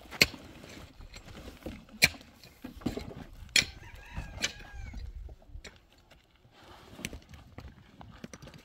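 A chicken calls briefly about four seconds in, among sharp knocks that come every second or two.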